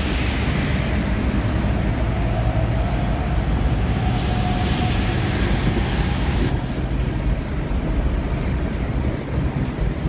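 Steady road traffic rumble from an elevated highway and nearby roads, with a vehicle passing and swelling louder about halfway through.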